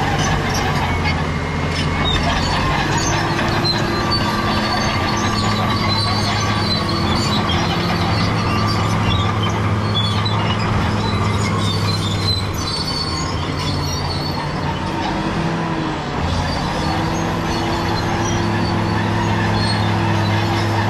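Caterpillar D7G bulldozer's six-cylinder diesel engine working under load, with the steel tracks squealing and clanking. The engine eases off a little past halfway, then picks up again.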